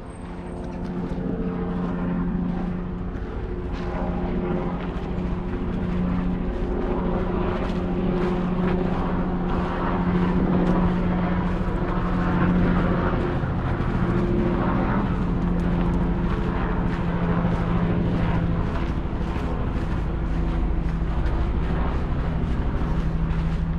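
A large engine running with a steady hum, growing louder over the first two seconds and then holding.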